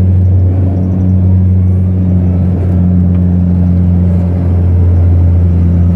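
Cabin drone of a Saab 340's twin General Electric CT7 turboprops in flight after takeoff: a loud, steady, low propeller hum with a fainter tone above it.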